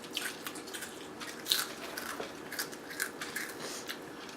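Chewing a crunchy spicy snack: irregular crisp crunches, the loudest about one and a half seconds in.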